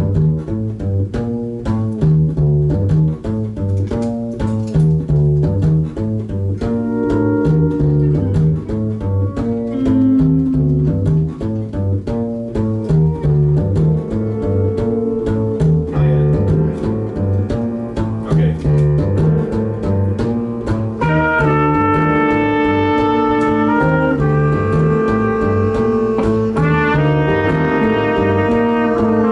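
Live band playing: a repeating bass riff opens alone and the other instruments come in over it, with long held melody notes from about two-thirds of the way through.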